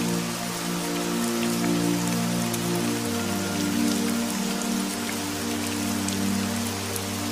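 Steady rain falling with scattered drop ticks, over soft ambient music of long held notes that shift to a new chord about three seconds in.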